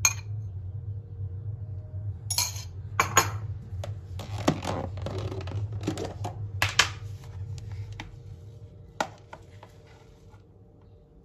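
Utensils and containers clinking against a glass mixing bowl as ingredients are added: a few separate sharp clinks, with a short stretch of rustling and scraping in the middle, over a steady low hum. The sounds thin out near the end.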